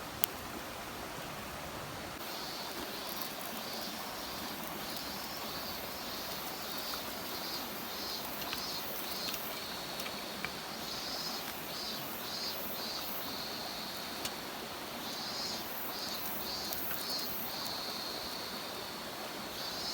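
Outdoor field ambience: a steady rushing hiss, with a single sharp click right at the start. From about two seconds in, a high-pitched animal call comes in short pulsing runs and carries on.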